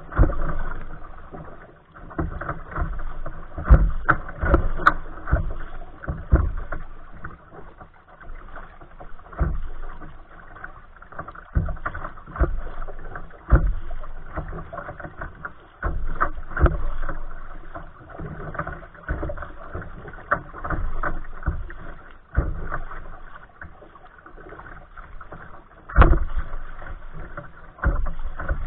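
Choppy water slapping and splashing against a kayak's bow as it is paddled, in uneven surges every second or two.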